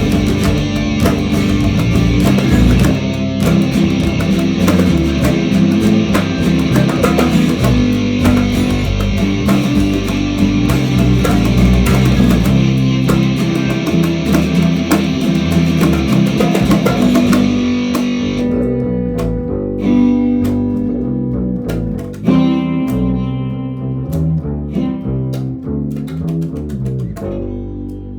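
A rock band plays a song with distorted electric guitar and bass guitar. About two-thirds of the way through, the dense, crashing high end drops out, leaving sparser held guitar and bass notes that ring and fade away near the end.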